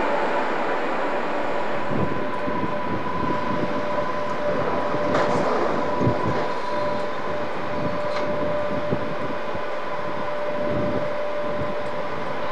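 Locomotive-hauled train moving through the station: a steady high whine at two pitches over a rumble, with scattered clicks of wheels on rail joints.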